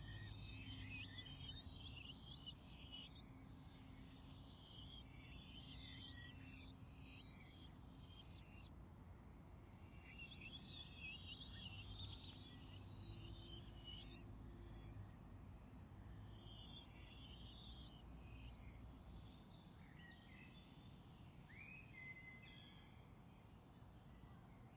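Woodland songbirds singing faintly in phrases of quick, high chirping notes a few seconds long with short pauses between, over a low, steady background rumble.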